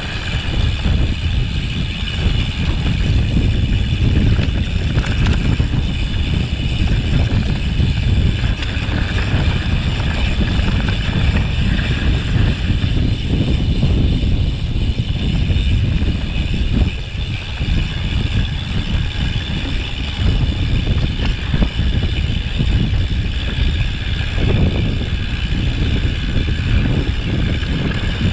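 Mountain bike riding down a rough mountain trail: a loud, continuous low rumble of wind on the microphone and tyres over rocks, with constant jolts and rattles, and a steady high-pitched hum over the top.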